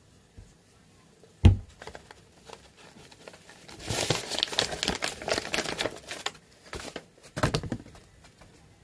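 Kitchen handling sounds: a sharp knock about one and a half seconds in, then a couple of seconds of crinkling and rustling, and another thud near the end.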